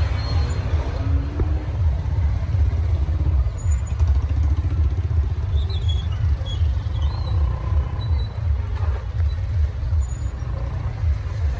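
Motorcycle engines of a slow-moving crowd of riders, a steady low rumble, with a few brief faint high tones over it.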